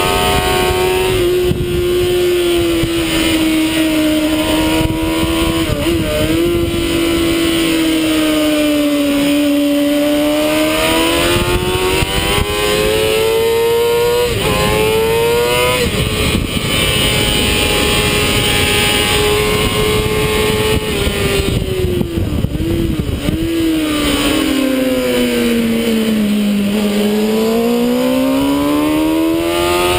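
Sport motorcycle engine running hard on track, its pitch climbing under acceleration and falling as the bike slows for corners, with a few brief wavers in the note. Heavy wind rush from riding at speed runs underneath.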